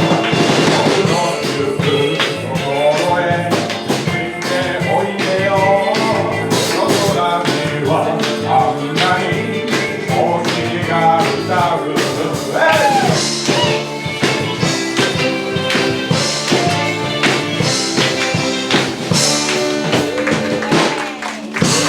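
Live band playing a rock-and-roll song with a singer over a steady drum beat.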